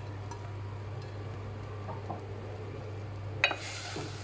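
A steady low hum with a few light clicks, then a sharp clink of a spatula against a glass cooking pot about three and a half seconds in, followed by a brief hiss.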